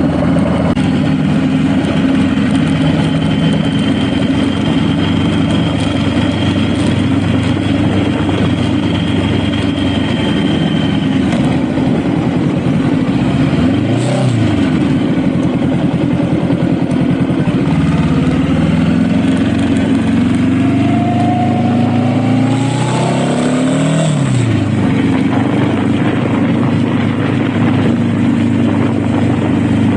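Honda Rebel motorcycle engine running under way, its note steady for long stretches and shifting in pitch a couple of times as the revs change, under steady wind and road noise.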